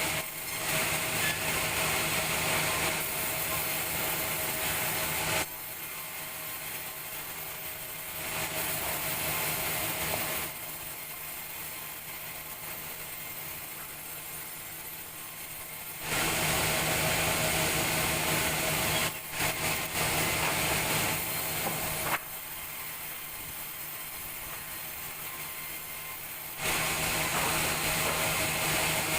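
Sawmill saw running with a steady motor hum, going from idle to cutting through timber in stretches of several seconds: a louder, hissier cut at the start, another about two-thirds of the way in, and another near the end.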